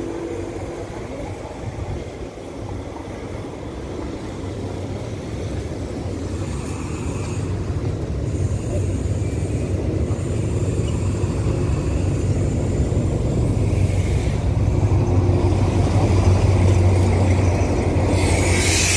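Diesel locomotive hauling a passenger train into the station: the engine's low drone grows steadily louder as it approaches. A loud high hiss sets in near the end as it draws alongside.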